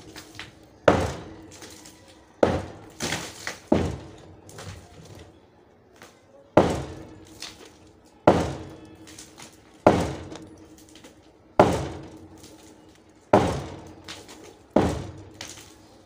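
Hand hammer striking a reinforced concrete slab to break it up: about nine heavy blows, one every second and a half or so, with a pause of about two seconds near the middle.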